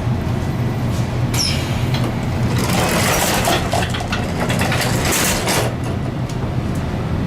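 Metra commuter train rumbling steadily, with a loud hissing rush from about two and a half to five and a half seconds in.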